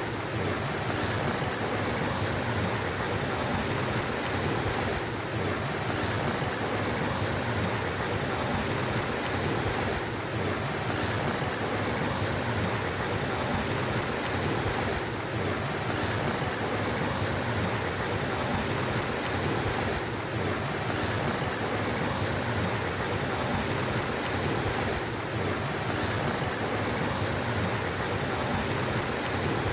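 Flowing water of a mountain stream, a steady, unbroken rush with a slight dip about every five seconds.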